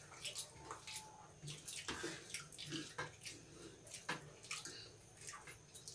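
Wet mouth sounds of people eating rice by hand: smacking and chewing, with fingers working rice on the plates. The sounds come as irregular short clicks.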